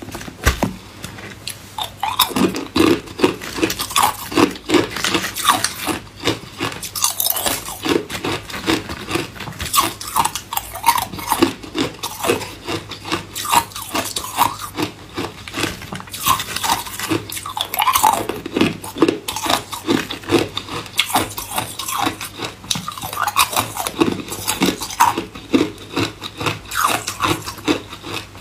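Hard ice cubes being bitten and chewed, a continuous run of sharp, irregular cracks and crunches, one bite after another.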